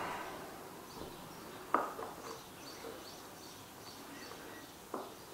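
Fledgling American robin giving faint, short, high chirps in a loose series. Two light knocks stand out, one just under two seconds in and one near the end.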